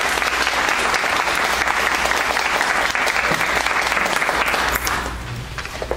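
Audience applauding, dying away about five seconds in to a few last claps.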